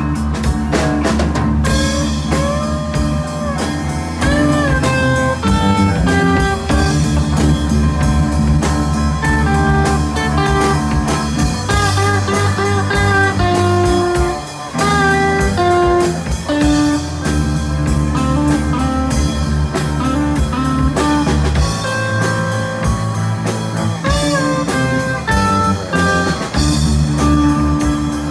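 Live blues band playing an instrumental section. A lead electric guitar solos with bent notes over a second electric guitar's rhythm part and drums.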